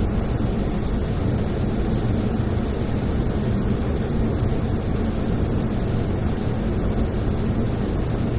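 Steady cockpit noise of a Boeing 737-800 on final approach: a constant, deep rush of airflow and engine hum that does not change.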